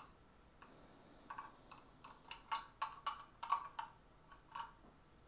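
Small objects in a box clicking and knocking against each other as one is picked out by hand: a quick irregular run of light clicks, starting about a second in and stopping near the end.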